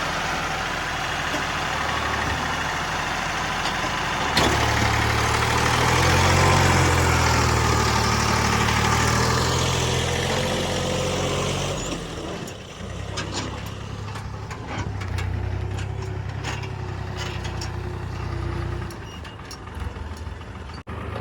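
Heavy diesel engine of earthmoving machinery running. About four seconds in it revs up sharply and works hard under load for several seconds, then drops back to a lower, steadier run around twelve seconds in, with scattered clicks and knocks.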